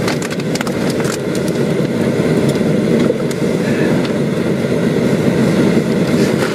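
Armoured MRAP's diesel engine running steadily as the vehicle pulls up close, a dense rumble with a few sharp clicks and rattles in the first second.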